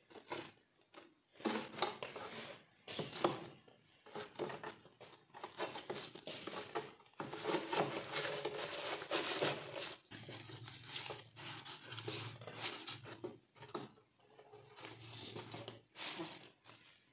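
Aluminium-foil packet crinkling and rustling as it is gripped with metal tongs and lifted out of glowing charcoal in a clay stove, with irregular scrapes and clinks of the tongs against the coals and the stove rim. The crinkling is busiest in the middle.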